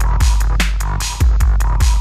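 Background electronic dance music with a deep, held bass and a fast, steady drum beat.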